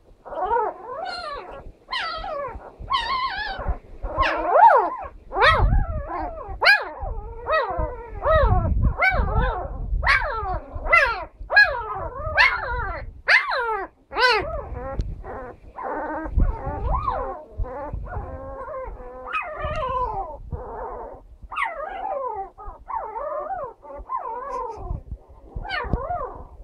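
Nine-day-old Caucasian Shepherd puppy barking in high-pitched, squeaky yelps and whines, one call after another with hardly a pause, the pitch of each bending up and down.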